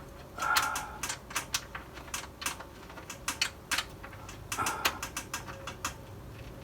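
Small metal clicks and scrapes of a screwdriver and screw working against the steel side panel of an ASUS TUF 301 PC case, with two short scraping bursts among the clicks, as the screw refuses to seat properly.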